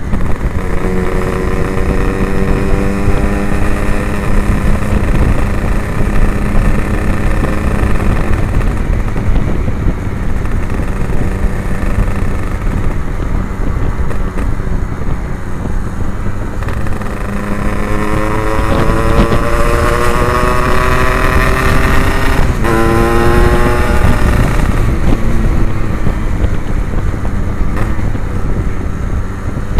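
Yamaha RX-King 135cc single-cylinder two-stroke engine with an Abbox C20 aftermarket exhaust, heard from the moving bike. Its revs climb as it accelerates near the start and again in the second half, with a quick gear change about two-thirds through, over heavy wind rumble on the microphone.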